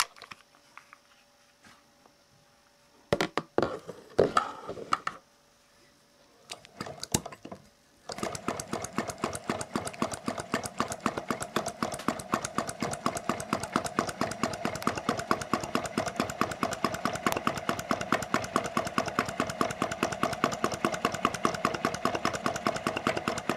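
Model flame-eater (vacuum) hot-air engine starting up once its burner is lit: a few clicks and knocks at first, then from about eight seconds in a fast, even ticking of the running engine that grows gradually louder.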